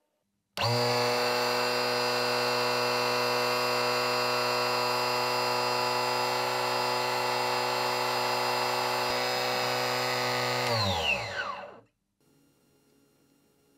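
Homemade mini table saw with a 24 V 775 DC motor driving a 60 mm circular blade through a GT2 timing belt, running free with no cut: it starts abruptly about half a second in and gives a steady high whine. Near the end it is switched off and the whine falls in pitch as the blade spins down to a stop.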